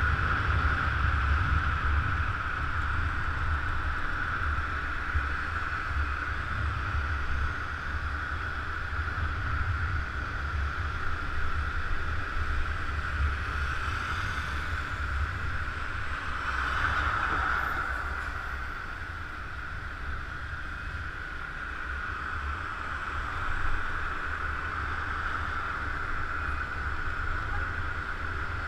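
Motor scooter on the move: wind buffeting the microphone over a steady low rumble and a constant high hum, which swells briefly about seventeen seconds in.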